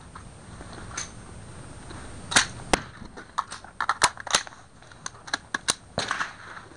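Rifle shots firing on a highpower firing line: a string of sharp separate cracks starting about two seconds in, about half a dozen over the next four seconds, with fainter clicks between them.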